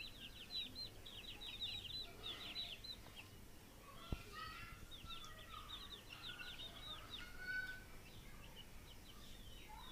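Month-old deshi chickens peeping faintly: quick runs of short, high calls, a first run in the opening seconds and another in the second half, with a few lower calls among them. One sharp tick about four seconds in.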